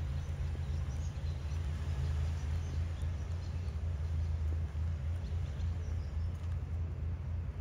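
Outdoor background noise: a steady low rumble with faint, scattered high chirps above it.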